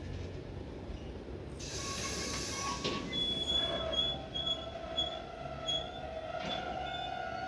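Freight train of tank wagons passing, its wheels rumbling on the rails. About two seconds in there is a short burst of hiss, then the wheels squeal in thin, high tones that come and go.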